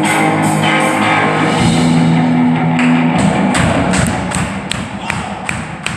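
Church worship band playing an instrumental passage: held low bass notes, then sharp drum strikes about three a second in the second half.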